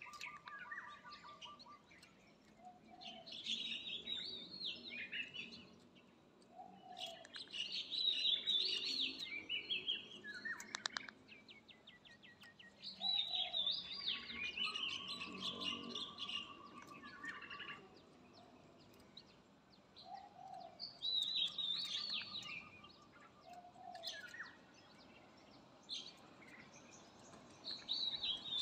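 Zebra doves calling: bursts of rapid, high staccato notes come every five to eight seconds, with short soft low notes in between.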